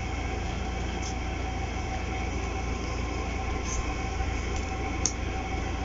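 A steady machine hum with hiss, like a room air conditioner or fan running, with three faint soft taps as oracle cards are shifted in the hand.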